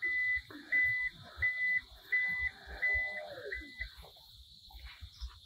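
Toyota Land Cruiser 300's power tailgate opening: its warning buzzer beeps six times at an even pace, stopping about four seconds in, over the faint whir of the tailgate's lift motor.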